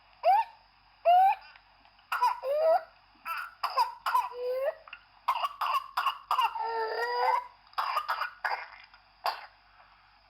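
Whooping cough (pertussis): a paroxysm of short, rapid coughs broken by high-pitched, crowing inspiratory whoops as air is drawn in through a half-open glottis. A few separate coughs come in the first two seconds. A dense fit follows from about two seconds in, with a longer drawn-in whoop near the middle.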